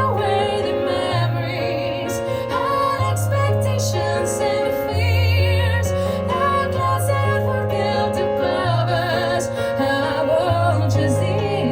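A woman singing a slow ballad live, with wide vibrato on long held notes, over piano chords with a held bass note that changes every second or two.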